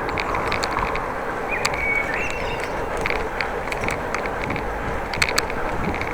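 Bicycle being ridden: steady tyre and wind noise, with scattered clicks and rattles and a brief high squeak about one and a half seconds in.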